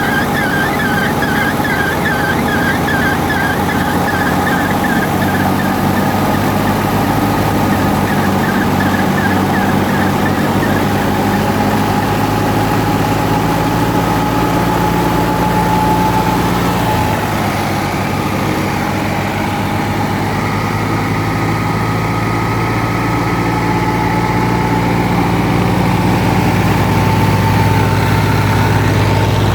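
Super Fine Daska wheat thresher running steadily with its drive engine. A fast, repeated chirping runs through the first dozen seconds. The sound eases off a little past the halfway mark and builds again near the end.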